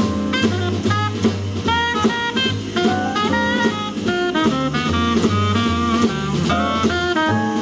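Small jazz group playing: a tenor saxophone plays a moving melodic line over upright bass notes and a drum kit with cymbal strokes.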